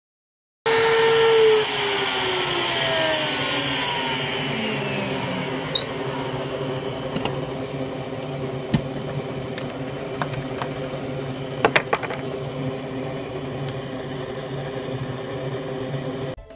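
Small CNC router's rotary-tool spindle winding down, its pitch falling over several seconds over a steady machine hum, with a few sharp clicks in the middle.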